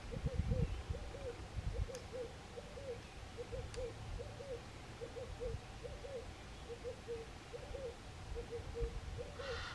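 A dove cooing over and over in the same phrase, two short notes then a longer one, repeated about once a second.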